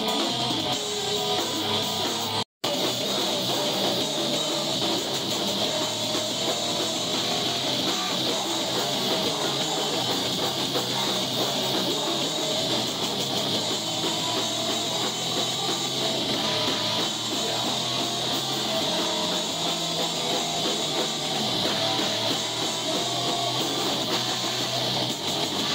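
Live heavy rock band playing: electric guitar and drum kit with a vocalist singing into a microphone. The sound cuts out for a split second about two and a half seconds in, then carries on.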